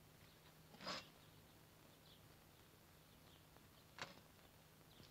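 Near silence with a faint steady low hum, broken by two short soft noises, one about a second in and one near the end.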